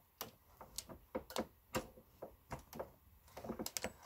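Lee Auto Turret reloading press being worked by its handle: a string of light, uneven metallic clicks and ticks from the ram and linkage, coming faster near the end.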